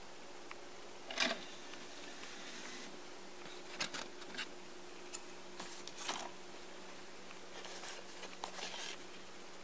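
Plastic DVD cases and discs being handled: a scattering of short clicks and rustles as a disc is pressed off and unclipped from the case's centre hub, over a faint steady hum.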